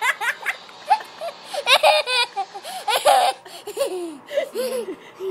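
A small child laughing and giggling in repeated high-pitched bursts, loudest near the start and again in the middle.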